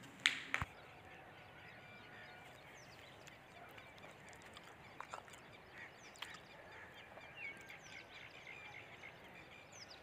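Two sharp knocks just after the start, then scattered faint bird chirps and calls over quiet outdoor ambience, with a few light taps.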